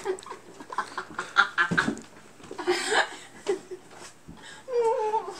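Young women laughing in short, broken bursts amid scuffling, with a short pitched cry near the end.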